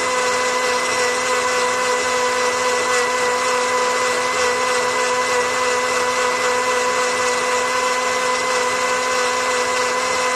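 Electric blender running at one steady speed: a constant motor whine over a dense whirring hiss, with no rise or fall in pitch.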